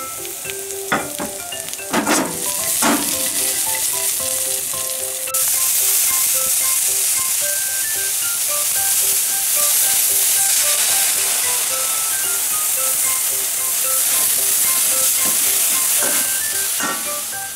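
Bean sprouts sizzling loudly as they stir-fry in a hot wok, with a few knocks of the ladle against the pan. The sizzle grows louder about five seconds in and fades near the end.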